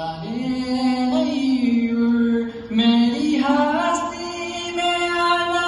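A man singing solo in long, held notes, sliding up from one pitch into the next.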